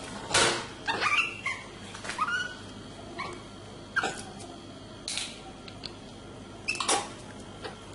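Several short, high-pitched squeaky animal calls, some sliding in pitch, with a few sharp knocks or clatters between them; the loudest knock comes about half a second in.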